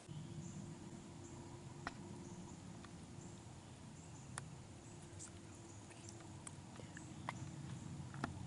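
Quiet woodland background: a steady low rumble with a few sharp clicks spread through, and faint high-pitched chirps.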